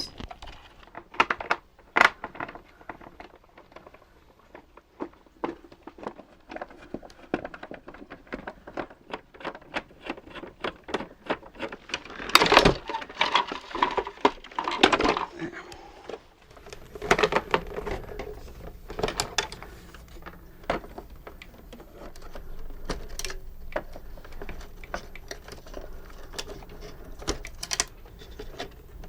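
Small plastic robot parts being handled and fitted together: scattered clicks, taps and light rattles, with a louder clatter of knocks about halfway through.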